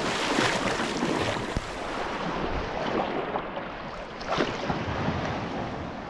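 Sea water washing and sloshing in small waves, with wind buffeting the microphone.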